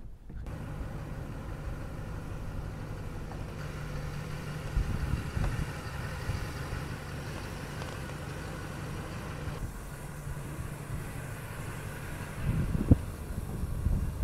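An engine running steadily at an even low pitch, with a few knocks near the end.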